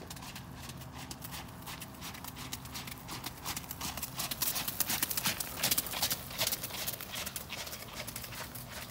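Horse's hoofbeats on wet, gravelly arena footing under a rider, growing louder to a peak about five to six seconds in as the horse passes close, then fading as it moves away.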